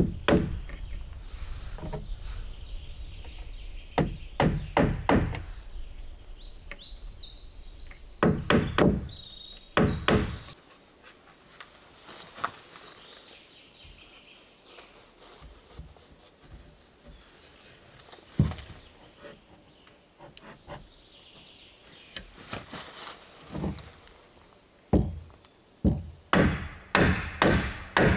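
Hammer blows on wooden boards: scattered strikes and knocks, then a quick, steady run of strikes over the last few seconds.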